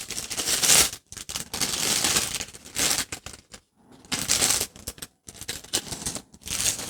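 Action-figure packaging being handled and unwrapped: irregular bursts of plastic crinkling, with sharp clicks and short pauses in between.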